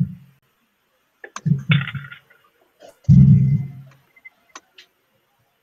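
A few sharp computer mouse clicks, with two short muffled low sounds in between, the louder one about three seconds in.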